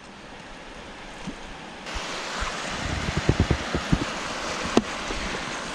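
River water rushing and splashing around an inflatable river tube as it drifts into a choppy riffle: a steady hiss of moving water that gets suddenly louder about two seconds in. There are several low thumps in the middle and a sharp knock near the end.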